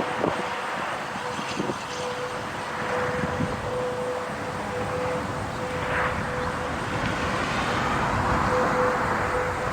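Federal Signal STH-10 rotating electromechanical outdoor warning siren in its long wind-down after a test alert, its rotor coasting down and giving a low, steady tone that fades in and out every second or so as the rotating head turns.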